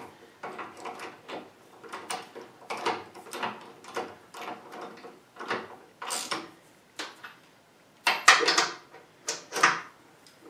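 Hand ratchet wrench worked back and forth, tightening a bolt on a cast-iron bracket: a run of short ratcheting strokes, a few a second, with louder metallic clacks from tools on the steel cabinet top near the end.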